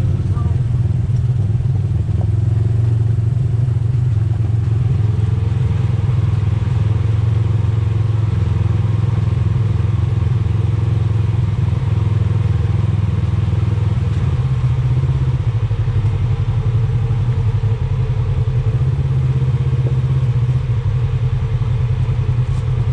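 Side-by-side UTV engine running steadily while driving along a trail, with a slight dip in pitch a little past halfway.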